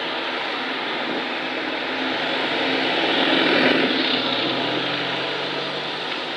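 Single-decker bus, an Alexander Dennis Enviro200, driving past close by. Its engine and tyre noise builds to a peak about three and a half seconds in and then fades, as another vehicle comes up behind it near the end.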